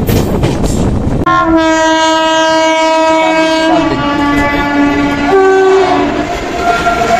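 A train running at speed, with rail and wind noise from an open coach door. About a second in a train horn sounds for several seconds. Its pitch drops about four seconds in, and a short higher horn note follows soon after.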